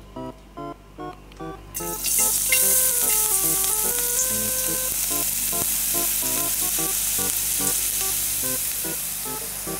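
Minced garlic dropped into melted lard in a hot frying pan, starting to sizzle about two seconds in and then sizzling steadily. Light, playful background music runs throughout.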